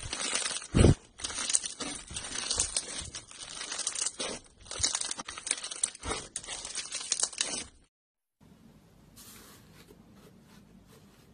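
Bead-textured slime being kneaded and squeezed by hand: dense crackling and crunching of many tiny pops, with a louder squelch about a second in. After about eight seconds the crackling stops and only a faint soft sound of a finger pressing into smooth slime remains.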